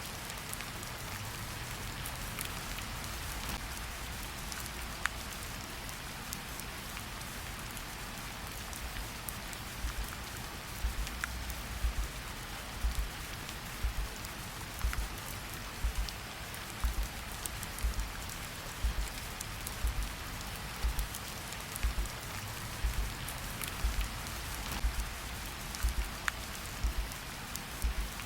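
Steady rain hiss with scattered drop ticks. From about a third of the way in, a low heartbeat thump joins it and repeats about once a second.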